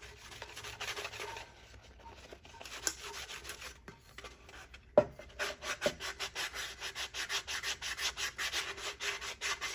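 Sanding sponge rubbing over the cured epoxy coat of a glitter tumbler in quick back-and-forth strokes, smoothing a finish that came out bumpy. A sharp tap about five seconds in, after which the strokes come faster and more evenly.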